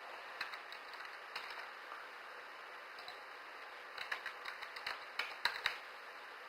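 Computer keyboard keys clicking: scattered keystrokes at first, then a quicker run of them about four seconds in, over a steady faint hiss.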